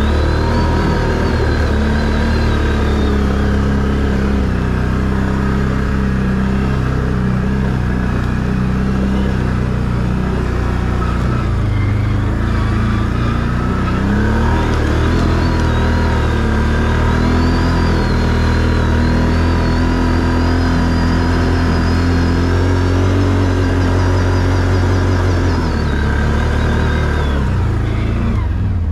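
ATV engine running under throttle on a rough trail, its note rising and falling as the rider works the throttle, with a thin high whine wavering above it. Near the end the engine note drops away.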